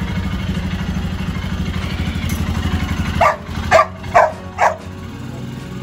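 Royal Enfield Himalayan's single-cylinder engine idling with a steady low thump. About three seconds in, the engine falls quieter and a dog barks four times, about two barks a second.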